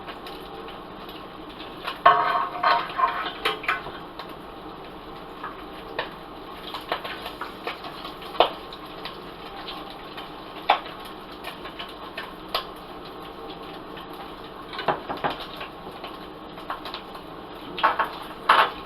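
Food frying in hot oil in a pan: a steady sizzle with scattered sharp pops and crackles. There are clattering clusters about two seconds in and near the end, typical of a utensil knocking against the pan.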